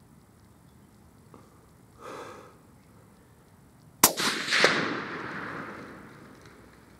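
A single Blaser R8 rifle shot about four seconds in: a sharp crack, a second report about half a second later, then a long echoing fade.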